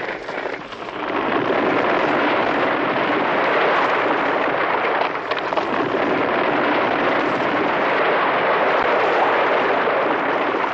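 Vintage avalanche sound effect: a loud, dense rushing noise, more hiss than deep rumble, that swells about a second in and then holds steady.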